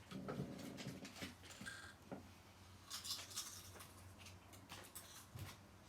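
Faint rustling and light clicking of small objects being handled, with a low steady hum underneath.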